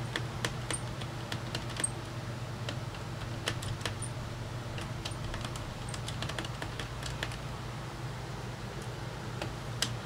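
Scattered light clicks and ticks of a screwdriver and small screws being worked out of a Samsung RF511 laptop's plastic base panel, over a steady low hum.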